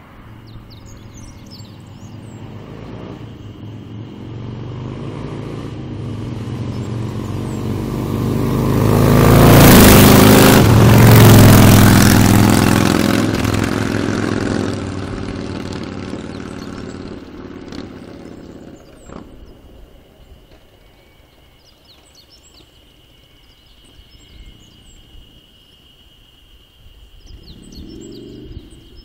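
Two Harley-Davidson Dyna motorcycles, an FXDB Street Bob and an FXDC Super Glide Custom, with V-twin engines passing at speed. The engine and exhaust sound builds for several seconds, peaks twice in quick succession as they go by, then fades away over several seconds.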